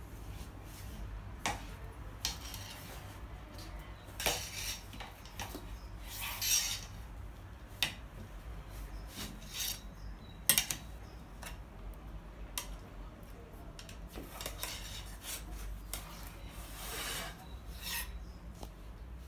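Kitchen utensils scraping with a rasping sound against dishes, several scrapes a few seconds apart, with scattered clicks and clinks of cutlery in between.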